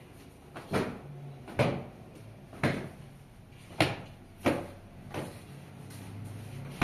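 A cloth slapping and beating the velvet upholstery of an armchair to dust it: a series of sharp slaps, roughly one a second.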